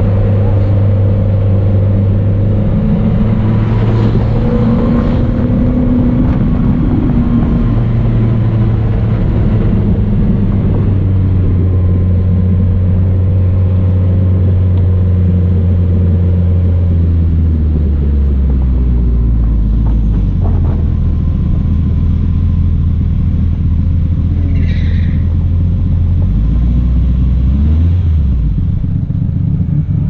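Rally car's engine running at low, steady revs while the car rolls slowly, the engine note holding in steps and dropping lower about two-thirds of the way through and again near the end as the car slows.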